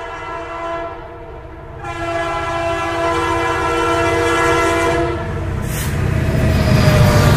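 Train horn sounding two long, steady blasts: a short one ending about a second in, then a longer one of about three seconds. A louder low rumble builds near the end.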